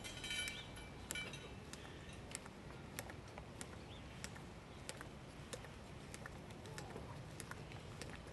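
Quiet outdoor ambience with scattered sharp clicks and taps at irregular intervals, and a few high chirps, typical of birds, in the first second or so.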